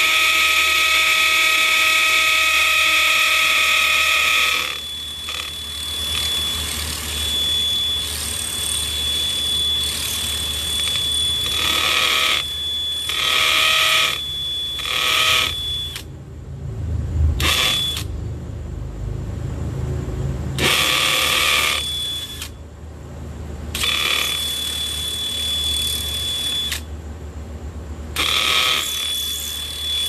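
DeWalt cordless hammer drill boring holes, starting with a long steady run at full speed, then running in a series of shorter spurts with pauses between them as the trigger is squeezed and released.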